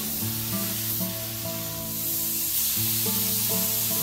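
Air-powered spray gun hissing steadily as it sprays adhesive onto a styrofoam roof core, over background acoustic guitar music.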